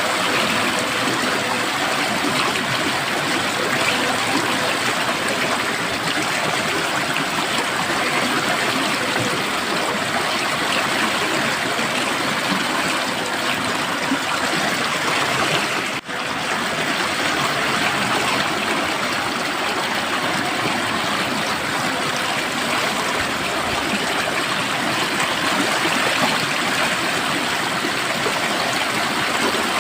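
Flowing water running steadily, with a momentary dropout about halfway through.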